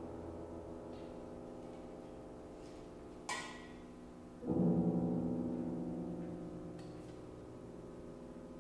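Grand piano low chords ringing and slowly dying away under the sustain, then a new deep chord struck about four and a half seconds in that rings on and fades. A short, sharp click with a brief metallic ring comes just before it.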